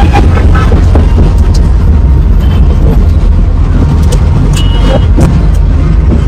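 Loud, steady low rumble of a moving road vehicle heard from inside, with scattered clicks and rattles.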